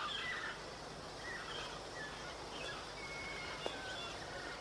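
Forest ambience: a steady background hiss with scattered faint bird chirps and a single soft tick near the end.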